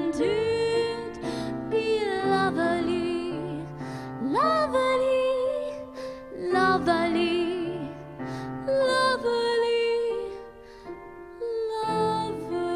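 A woman singing into a handheld microphone: long held notes, slides and vibrato, over instrumental accompaniment.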